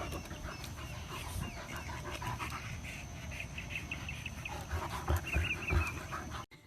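A dog panting, with a few short high squeaks near the end; the sound cuts off suddenly just before the end.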